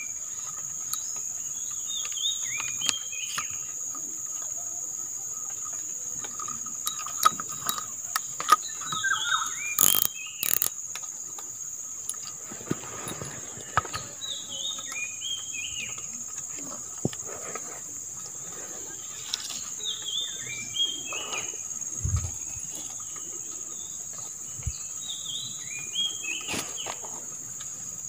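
Insects keep up a steady high-pitched drone while a bird repeats short clusters of falling chirps every few seconds. A few sharp clicks and rustles from handling fishing gear and bait bags stand out, the loudest around seven to eleven seconds in.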